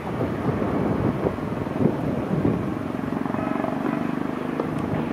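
Locomotive of an approaching train: an uneven rumble, then a steady engine-like hum that sets in about halfway through and holds.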